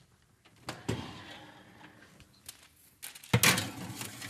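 Aluminium baking sheet being slid into a wall oven: a knock about a second in, then a loud scraping clatter of the metal sheet against the oven's wire rack a little after three seconds in.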